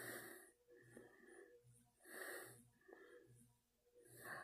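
Near silence with a man's faint breathing through the nose, a soft breath about once a second.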